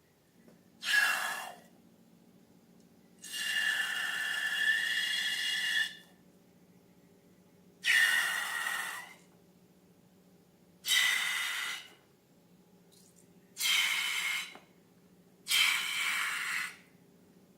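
Air squealing and hissing out of the stretched neck of a balloon in six separate bursts. Most last about a second, and the second, about three seconds in, runs nearly three seconds.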